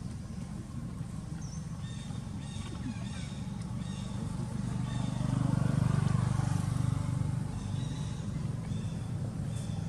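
Low engine drone of a passing motor vehicle, swelling to its loudest a little past the middle and then fading, with faint short high chirps repeating over it.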